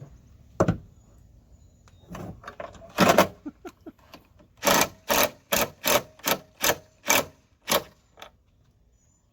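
Power drill with a T40 Torx bit snugging down a liftgate strut bracket bolt: a few clicks, then a regular run of about eight short pulses, roughly two a second.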